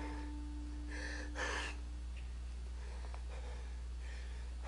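A performer's heavy breathing: two short audible breaths about a second in, over a steady low electrical hum.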